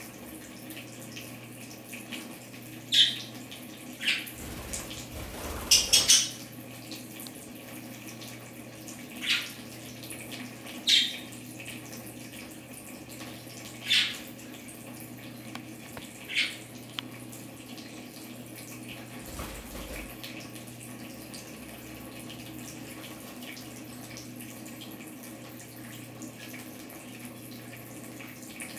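Water trickling and splashing from a budgie shower arch into a tub over a steady low hum, while budgerigars give several short, high chirps, a cluster of them about six seconds in.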